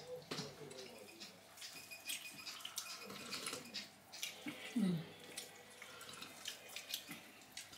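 Sounds of a family meal at the table: small clinks of spoons and forks against plates and bowls, with sipping from a cup. A short low murmur about five seconds in.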